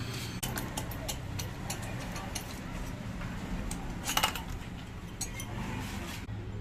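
Metal hand tools and engine parts clinking on a workshop bench: a string of sharp clicks and taps, with a louder rattling clatter about four seconds in.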